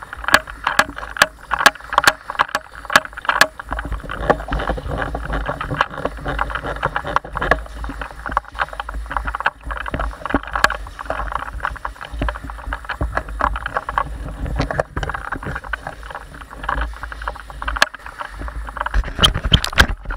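Airsoft guns firing: sharp cracks about two or three a second for the first few seconds, scattered shots after that, and a quick run of shots near the end. Under them runs a continuous rustling of gear and movement.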